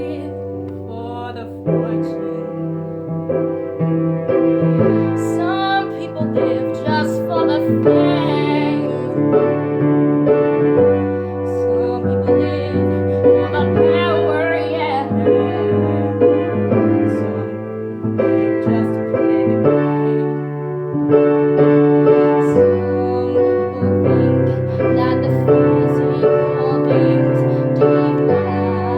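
Background music led by piano or keyboard, with steady held chords and a melody over them.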